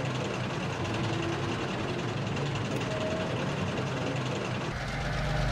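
Diesel railcar engine running steadily, growing louder with a deeper rumble about five seconds in as the railcar draws near.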